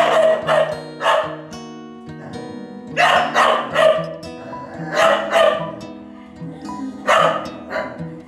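Dogs barking fiercely at a kitten, in four bunches of two or three barks about two seconds apart, over background guitar music.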